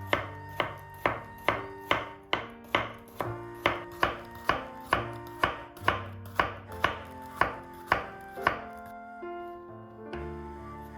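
Sharp rhythmic strikes, about two a second, over held musical notes. The strikes stop for about a second and a half near the end while the notes carry on.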